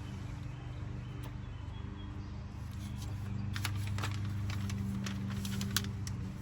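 Box packaging and paper inserts being handled: a run of crinkles and rustles in the second half, over a steady low hum.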